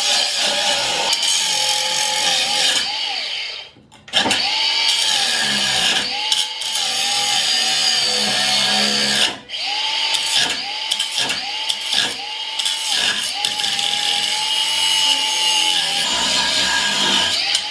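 A handheld power tool cutting into the steel shifter. Its motor whine sags and recovers again and again as it bites, and it stops briefly about four seconds in and again about nine and a half seconds in.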